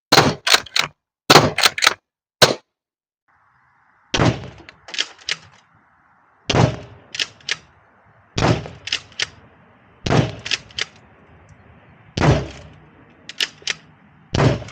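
Umarex HDX68 CO2 pump-action shotgun firing repeatedly: about nine sharp shots roughly every two seconds, each followed by quick clicks as the pump is racked.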